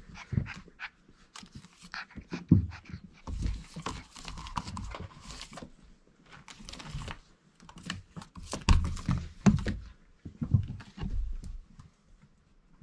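Four-week-old Irish Setter puppies scrambling about on blankets in their pen: scuffling, the odd small dog noise and irregular thumps, the loudest about two and a half seconds in and again around nine seconds in.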